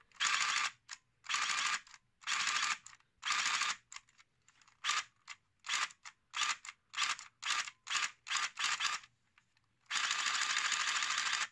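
Nerf Rapidstrike blaster's motors running in bursts as it fires. First come four bursts of about half a second each, then about ten short bursts at roughly two a second, then a longer continuous run near the end.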